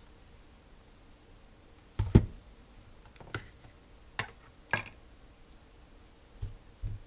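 Knocks of a plastic air mattress pump housing being set down and handled by gloved hands: a heavier double thud about two seconds in, then several lighter knocks.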